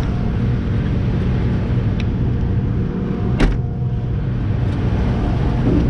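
Corn combine harvester running steadily, a low, even machine drone with a constant hum. A single sharp click sounds about three and a half seconds in.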